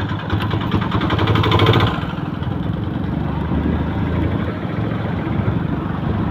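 Motorcycle engine running while the bike is ridden, louder for about the first two seconds, then settling to a steady, slightly quieter run.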